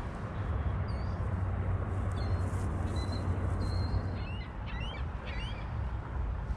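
Birds calling: a few short high chirps about two seconds in, then a run of short rising chirps in the second half, over a steady low rumble.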